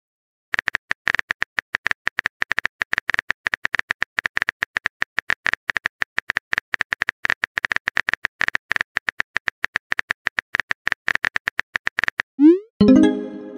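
Phone keyboard typing clicks, a rapid irregular patter of taps as a text message is typed out. Near the end a short rising tone and a brief chime sound as the message is sent.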